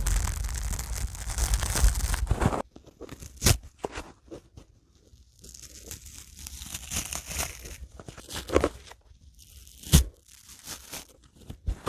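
A dry sponge worked close to the microphone. A dense rough rustle for the first couple of seconds stops suddenly, then comes scattered crunchy crackling and tearing, with two sharp snaps.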